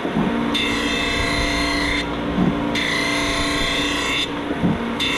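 ANCA CNC tool grinding machine running a cycle: a steady hum with a high whine that cuts in for about a second and a half and drops out briefly, repeating about every two seconds.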